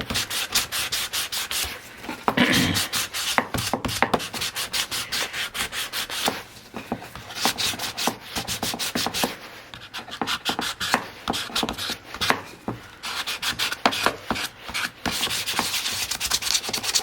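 Sandpaper rubbed by hand over the wooden parts of a chair, in quick back-and-forth strokes that rasp steadily and ease off for a while in the middle. This is the first clean-up sand, taking off ingrained dirt after scraping.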